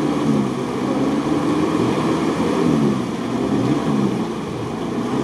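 Off-road 4x4 engine revving up and down over and over while driving through mud and water.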